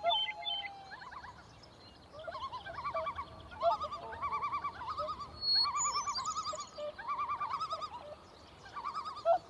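Wild birds calling: repeated bursts of quick, rolling, trilled notes, with a few higher chirps mixed in.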